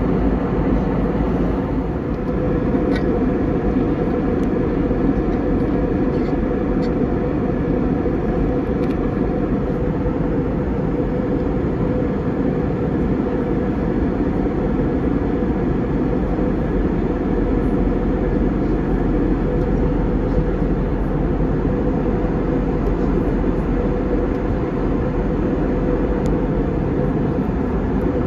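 Steady, even drone inside an Airbus A320's passenger cabin in flight: engine and airflow noise heard from a window seat, deep and unbroken, with a few faint ticks.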